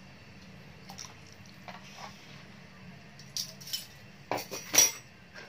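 Metal kitchenware clinking and clattering against a stainless steel cooking pot: a run of sharp clinks starting about three seconds in, loudest near the end, over a faint steady low hum.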